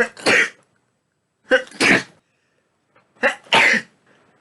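A person sneezing three times in quick succession, each sneeze a short sharp 'ah' followed by a longer 'choo', about one and a half seconds apart.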